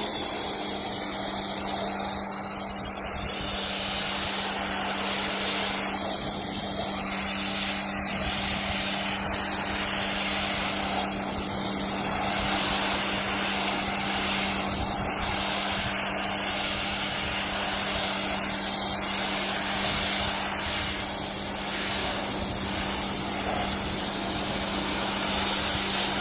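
Electric pressure washer (Hyper Tough 1500) spraying a high-pressure jet of water onto vinyl siding: a steady loud hiss of spray over a low, even motor hum, the spray's sound shifting every second or two as the wand sweeps back and forth across the siding.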